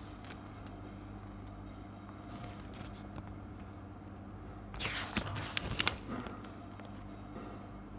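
A page of a paper instruction booklet being turned: a brief rustle and crackle of paper with a few sharp snaps about five seconds in, over a faint steady low hum.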